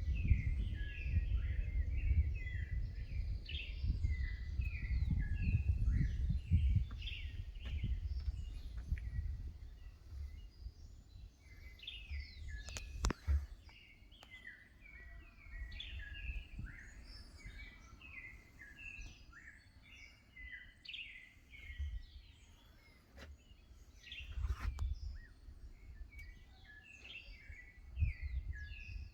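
Forest birds chirping and calling over and over in short, falling notes, with a low rumble on the microphone that comes and goes, heaviest in the first third. A single sharp click about halfway through.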